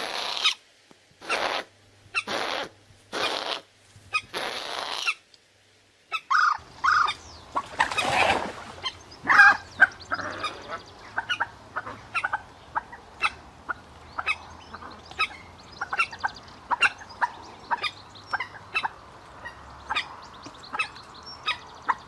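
Recorded common moorhen calls: first a series of about five harsh, rasping calls roughly a second apart, then after a short break a rapid run of many short, sharp calls over a faint steady background, with a few louder calls near the middle.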